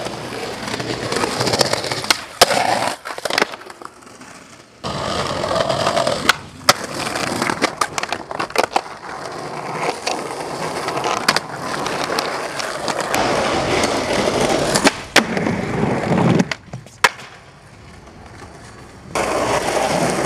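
Skateboard wheels rolling on concrete pavement, broken by sharp clacks of the board popping and landing several times. The rolling drops away twice, for a couple of seconds each time.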